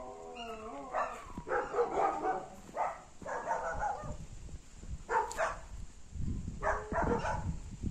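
A dog barking several times in short runs, with gaps of a second or so between them.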